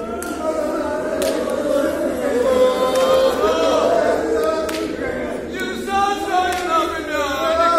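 Unaccompanied men's voices chanting a Kashmiri marsiya, an elegy of mourning, with several voices singing together and overlapping.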